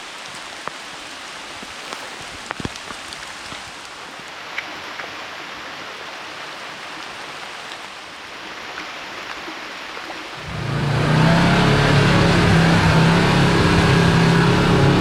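Rain falling steadily with scattered drops ticking close by. About ten seconds in, a side-by-side's engine comes in loudly and runs steadily.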